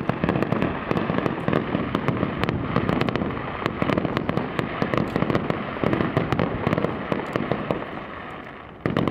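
Fireworks display in a dense barrage: rapid sharp cracks and crackling over deep booms, easing slightly before a fresh loud burst near the end.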